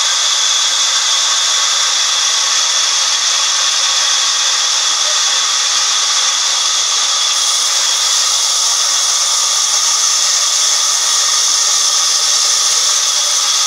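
Large sawmill band saw ripping lengthwise through a mahogany log: a steady, loud hiss with a thin high whine.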